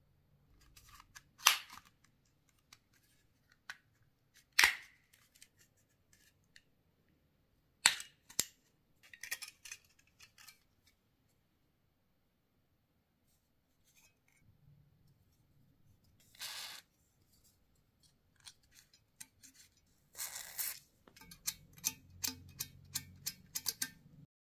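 Hard plastic clicks, snaps and scraping from a remote control's casing being handled and prised apart: loud single snaps every few seconds, two spells of scraping, and a quick run of small clicks near the end.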